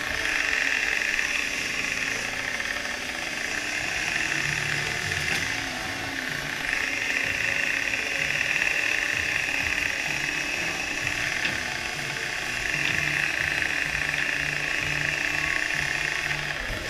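Crab boat's hydraulic line hauler and coiler pulling in crab-pot line: a high whine that runs in three long stretches, over a low engine drone.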